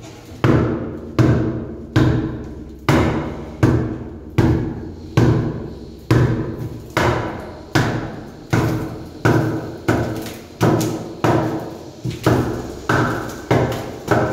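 A long bar rammed repeatedly against a saw-cut concrete wall panel to break it out, one heavy strike about every three-quarters of a second, each with a short ringing decay.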